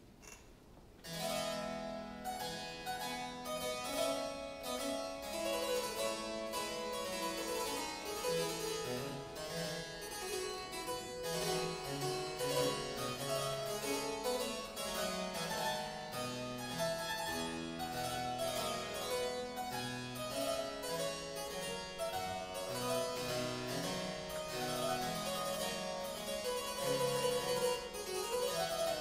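Solo harpsichord playing a Baroque piece in quick runs of plucked notes, beginning about a second in.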